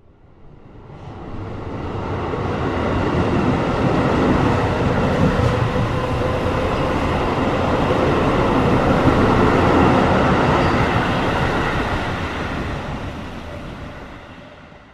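A train passing by: the rumble of wheels on rails swells up from silence, is loudest through the middle, and dies away again near the end.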